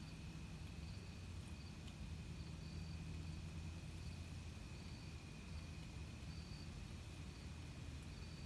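Faint crickets at night: one steady high trill, with short higher chirps repeating about once a second above it, over a low steady hum.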